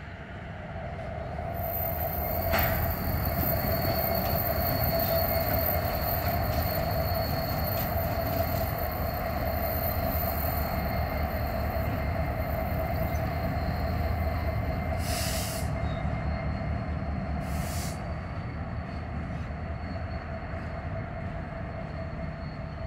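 Norfolk Southern EMD SD70ACe diesel locomotive rumbling past at slow speed hauling covered hopper cars, with steady wheel flange squeal from the cars on the yard track. The sound builds over the first two seconds, and two short hisses come through about halfway.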